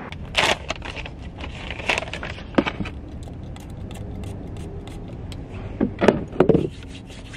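Scattered clicks, taps and rustles of hands handling a small item inside a car, over a low steady rumble. The loudest knocks come about half a second in and again around six seconds.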